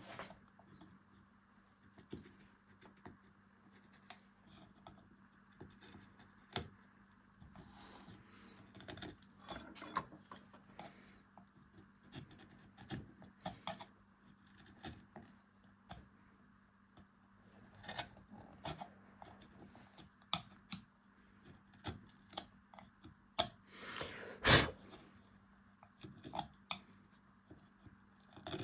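Carving tools cutting into beech wood: irregular short scraping and paring strokes with small clicks, and one sharper knock late on.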